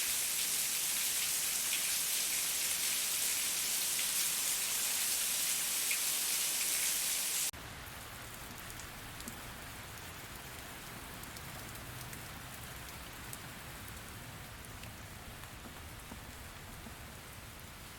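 Steady, dense rain hiss that cuts off suddenly about seven seconds in, replaced by quieter rain with scattered individual drop ticks and a faint low rumble.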